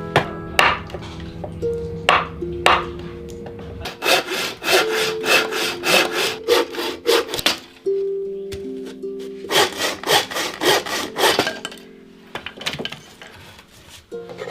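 Hand saw cutting wood in two runs of quick back-and-forth strokes, each run lasting two to three seconds.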